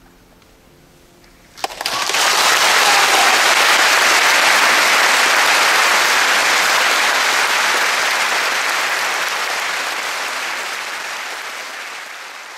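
Audience applauding. The last piano notes die away, then clapping breaks out suddenly about a second and a half in, holds loud and slowly fades toward the end.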